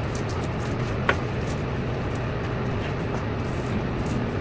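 Steady background noise with a low hum, and one light click about a second in.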